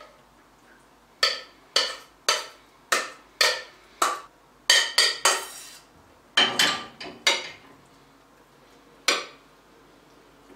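A stainless steel saucepan being knocked and scraped to empty thick walnut satsivi sauce onto chicken: a quick run of about a dozen sharp, ringing metal clinks, then one more after a pause.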